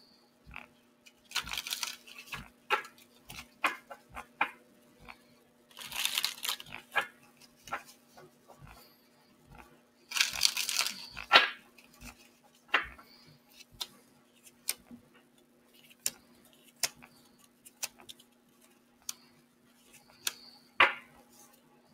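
A deck of oracle cards being shuffled by hand: a run of sharp card snaps and taps, with longer hissing shuffles of the deck about two, six and ten seconds in. A faint steady hum runs underneath.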